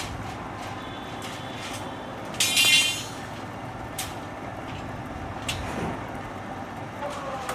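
BX25 rebar cutting machine running steadily, with one loud metallic clank of a cut about two and a half seconds in, followed by brief ringing, and a few lighter clicks later.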